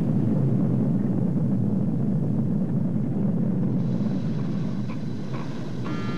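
Deep, steady rumble that does not let up. A set of higher tones begins over it just before the end.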